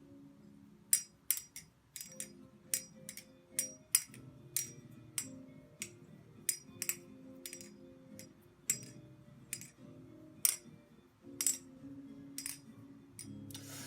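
Metal clacking of a BladeRunners Systems Chab balisong (butterfly knife) being flipped: sharp clicks of the handles and latch, irregular, one to three a second, starting about a second in. Background music plays underneath.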